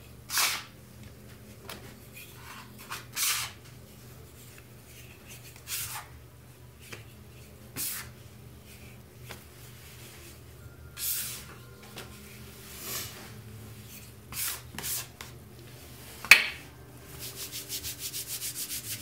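A plastic dough scraper and floured hands scraping and pulling wet ciabatta dough across a counter, in separate short strokes every second or two. A sharp tap comes about sixteen seconds in, then a quick run of short scrapes near the end.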